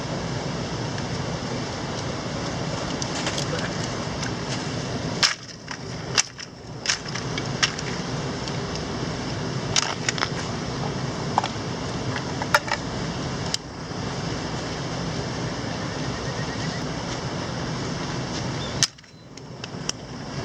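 Steady rush of a mountain stream, with about nine sharp cracks or knocks spread through it. The rush briefly drops away after the knocks about five seconds in and near the end.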